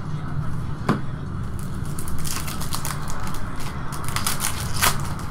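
Glossy trading cards being handled and flipped through by hand: stiff card stock clicking and rustling. One sharp click comes about a second in, then a quick run of crisp crackling clicks in the second half, over a steady low hum.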